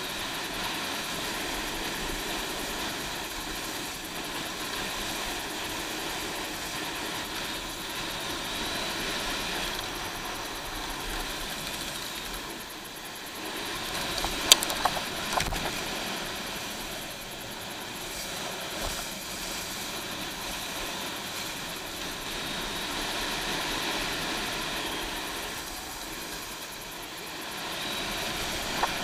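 Steady rush of wind and water spray on a helmet-mounted camera while a wakeboard is towed across a boat's wake, with a sharp knock about halfway through.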